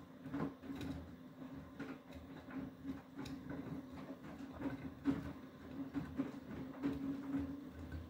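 Beko WTK104121W front-loading washing machine tumbling a wet load: a steady motor hum with irregular soft thuds and swishes of clothes and water falling in the drum.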